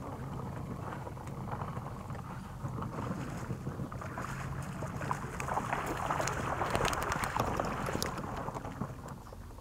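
Wind rumbling on the microphone, with water splashing, loudest in the second half, as a hooked white bass thrashes at the surface and is pulled through the shallows onto the bank.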